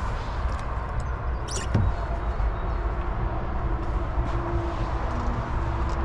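Steady low vehicle rumble, with a sharp click and a short thud about a second and a half in.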